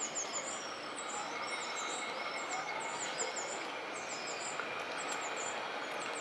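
Small birds chirping in quick, repeated high chirps over a steady hum of outdoor city noise.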